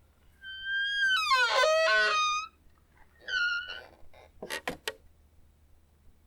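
Squeaky door hinge creaking as a door is slowly opened: a long creak that slides in pitch and stutters in the middle, then a second, shorter creak. A few quick knocks follow near the end.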